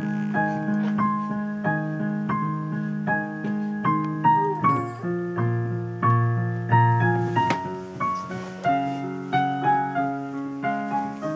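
Digital piano playing a slow tune: single melody notes struck about once or twice a second over held low chords.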